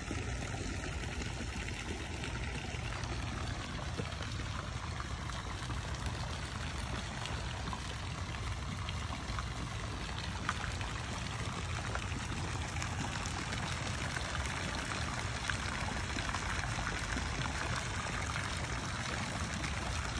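Pool fountain jets splashing steadily into the water: a constant rush of falling water.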